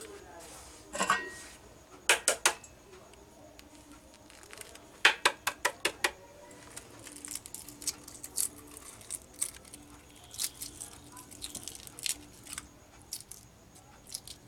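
Hard-boiled egg being cracked and peeled by hand: quick runs of sharp taps on the shell (three about two seconds in, about six around five seconds in), then many small crackles as pieces of shell come away.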